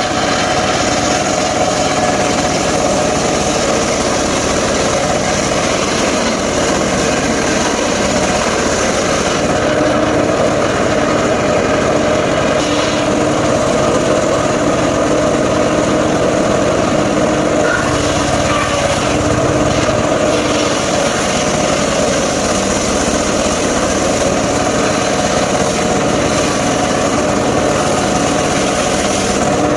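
Engine-driven circular saw of a mobile sawmill running steadily, its engine and blade making one continuous loud drone.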